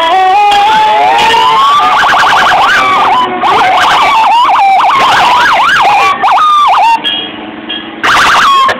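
Loud emergency-vehicle sirens from a passing fire engine and other emergency vehicles. A wail climbs over the first couple of seconds, then quick rising-and-falling yelp sweeps run until about seven seconds in, with a short burst again near the end.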